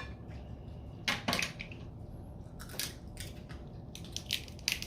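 Snow crab legs being cracked and pulled apart by hand: a series of short, sharp, irregular cracks and snaps of shell.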